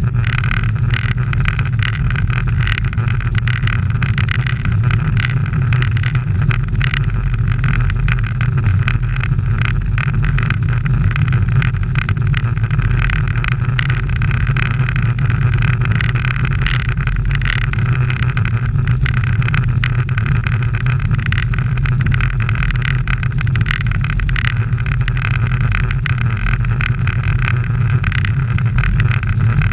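Steady rush of wind and tyre noise on asphalt, picked up by an action camera on a road bike riding at speed.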